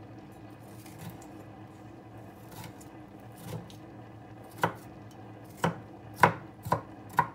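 Kitchen knife cutting a red bell pepper on a wooden cutting board: soft, quiet slicing at first, then about five sharp chops of the blade striking the board in the last few seconds.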